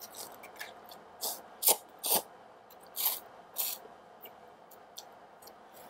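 A person slurping noodles from chopsticks in about five short sucks, with small wet mouth clicks and chewing between them.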